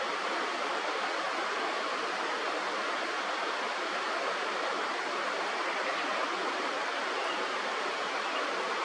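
Running stream water, a steady even rush.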